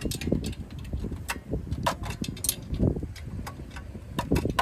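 Wind noise on the microphone, with a string of sharp clicks and taps from parts being handled in the engine bay.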